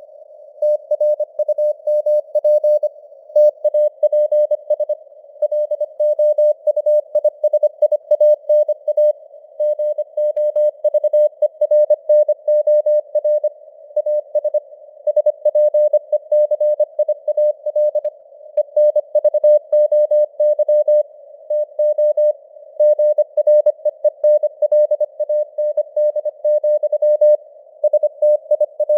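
Morse code (CW) sent at 25 words per minute: a single mid-pitched tone keyed rapidly on and off in dots and dashes, over a faint hiss of simulated radio band noise, with the signal strength drifting up and down (QSB fading).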